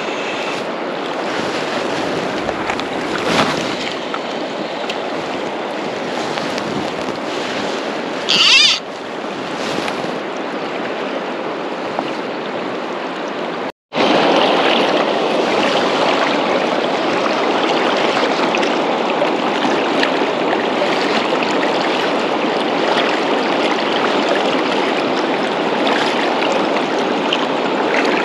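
Steady rush of a fast-flowing salmon river, with a short rising swish of the fly line being cast about eight and a half seconds in. The sound cuts out for an instant near the middle.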